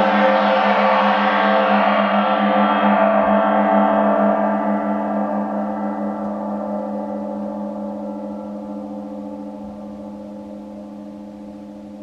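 A gong ringing out and slowly dying away, its high overtones fading first while a deep hum with a slow pulsing beat lingers.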